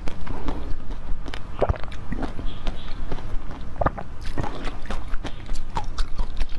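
A person chewing food close to the microphone: irregular wet smacks and clicks of the mouth.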